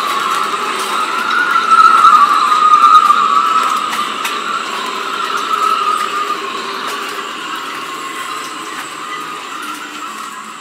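Storm wind whistling through sailboat rigging: a loud, high whistle that wavers in pitch, strongest two to three seconds in, then slowly dies down.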